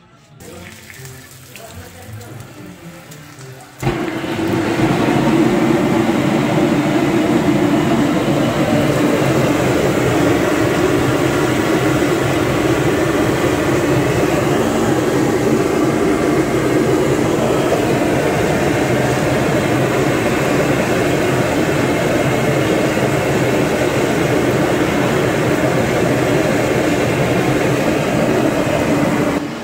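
Steady loud rushing roar of the gas burner flaming beside an al pastor trompo, starting suddenly about four seconds in. Faint music plays before it.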